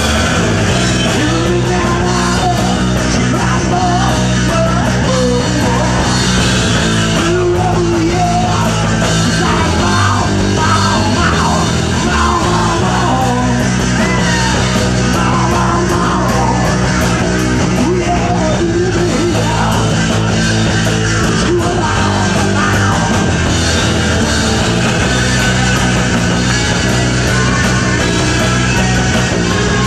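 Rock band playing live: electric guitar lines over bass and a drum kit, loud and steady throughout.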